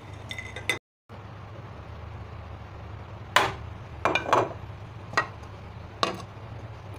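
Clinks and knocks of cookware: a small steel bowl of heated whole spices set down inside a glass bowl of marinated chicken and a glass lid fitted over it to smoke the meat, several sharp knocks between about three and six seconds in.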